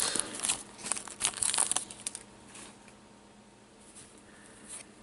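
Trading cards rustling and clicking as gloved hands flip through a pack, busy for about the first two seconds and then fainter, with only a few soft ticks.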